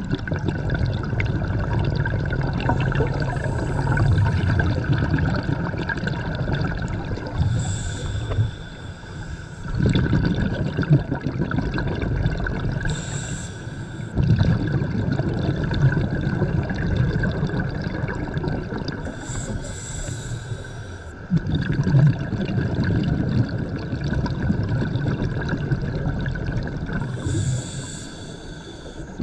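Scuba diver breathing through a regulator underwater: a short hiss on each inhale, then a long bubbling rumble of exhaled bubbles, repeating about every six to seven seconds. A faint steady high tone runs underneath.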